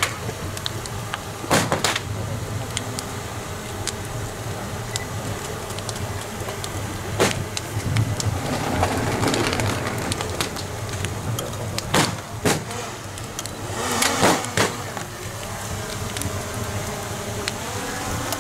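Firecracker bangs going off singly, about 1.5, 7 and 12 seconds in, then a quick cluster of several around 14 seconds in, over a steady outdoor crowd hubbub.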